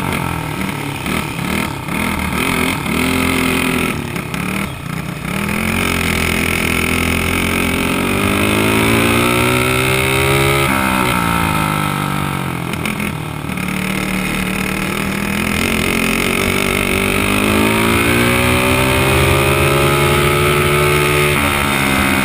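Dirt kart engine racing hard: it revs unevenly for the first few seconds, then the pitch climbs as it accelerates. The pitch drops off twice around the middle as the throttle lifts, then rises steadily again.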